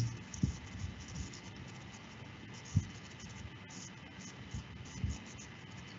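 Faint hiss and hum on a computer microphone, with a few soft thumps and light clicks from a computer mouse and desk being handled. The loudest thump comes about three seconds in.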